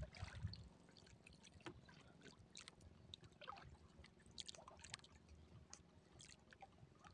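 Near silence: faint water lapping against a small outrigger boat's hull, with scattered small splashes and clicks.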